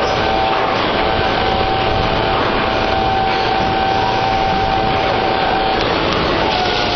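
Semi-automatic brick stacking and packing machine running, a loud, steady mechanical noise. A steady whine rides over it from about half a second in until nearly six seconds, then comes back briefly near the end.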